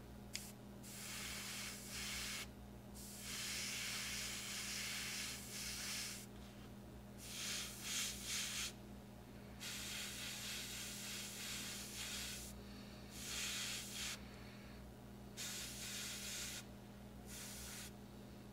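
Airbrush spraying paint in a series of short bursts of hiss, about eight of them, stopping and starting as the trigger is worked.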